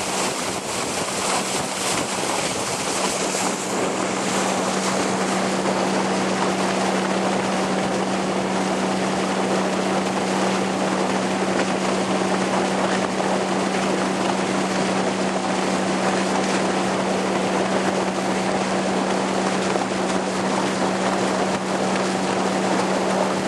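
Motorboat under way at steady speed: a steady engine hum under a loud rush of wind and water over the bow, with wind buffeting the microphone.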